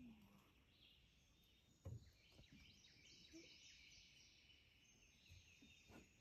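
Near silence: faint outdoor ambience with small birds chirping, and a soft low thump about two seconds in.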